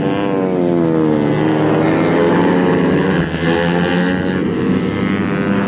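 Racing motorcycle engines at high revs as several bikes go through a corner. The pitch drops over the first second or so, then rises and falls again as more bikes come through.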